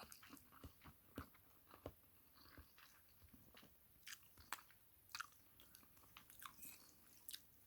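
Faint chewing of ramen noodles, with small irregular mouth clicks and crunches scattered through.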